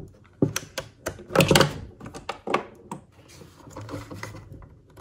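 Small plastic clicks and knocks of SATA connectors being pushed onto a Crucial SSD in its silicone bracket, with hands handling the drive. There is a louder cluster of knocks about a second and a half in, and the rest is fainter rustling.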